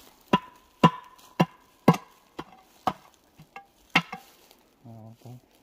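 A rod knocking caked soil off a rusty, partly buried iron pipe: sharp metallic knocks about two a second, the pipe ringing briefly after the first few strikes.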